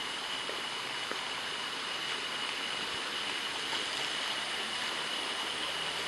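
Steady tropical forest ambience: a constant high-pitched insect drone over an even hiss, with faint rustles and footsteps as people push through leafy undergrowth.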